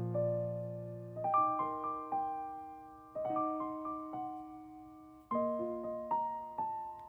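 Background music: a gentle solo piano playing slow phrases of struck notes that ring and fade.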